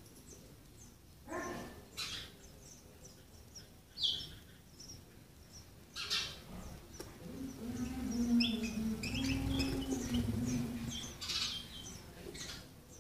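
Sparrows chirping in short, high calls that come quicker and thicker in the second half, with a few brief scuffing rustles. A low steady hum with a slightly wavering pitch comes in about halfway through and is the loudest sound for several seconds.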